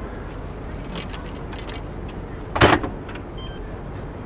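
A Citi Bike is pushed into its docking station and locks in with one loud clunk about two and a half seconds in, followed by a few short faint high beeps from the dock. Steady city traffic runs underneath.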